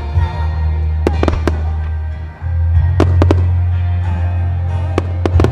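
Starmine fireworks by Nomura Hanabi: about ten sharp shell bursts in quick clusters, over music with a steady, deep bass line.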